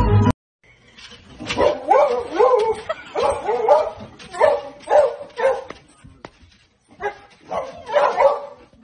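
Dog whining and yipping excitedly: a string of short cries that rise and fall in pitch, coming in clusters with short pauses between them. Music stops abruptly just before the cries begin.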